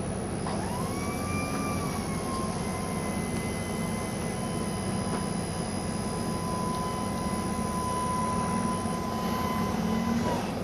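A steady mechanical rumble with a motor whine that starts about half a second in, rises in pitch, settles into a steady tone and cuts off near the end.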